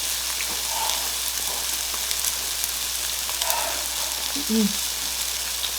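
Meat sizzling on a Korean barbecue grill: a steady hiss with small scattered pops of spitting fat.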